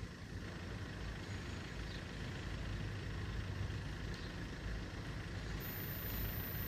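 Steady low rumble of road traffic, an engine running with no distinct events.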